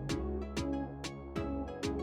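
Background music with a steady beat of about two sharp percussive hits a second over bass and sustained pitched notes.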